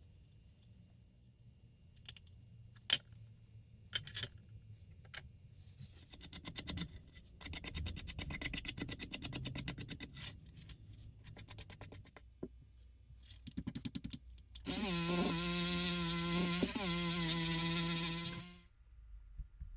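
Scattered clicks and taps, then a few seconds of rapid clicking, followed by a small electric power tool's motor running steadily for about four seconds, dipping briefly partway through, before it stops.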